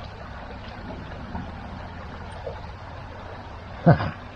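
Steady rushing of a fast, flooded small river, with a low rumble on the microphone. Near the end comes one short, loud thud.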